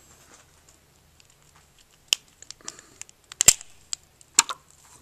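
A raw goose eggshell cracking and crunching as it is pried apart by hand. A scatter of sharp cracks begins about two seconds in, with the two loudest snaps about a second apart in the second half.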